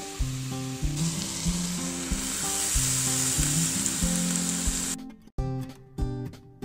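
Chicken kebabs sizzling in olive oil on the hot ribbed plates of an electric contact grill, the sizzle growing stronger about a second in. It cuts off suddenly about five seconds in, leaving background music with a steady beat.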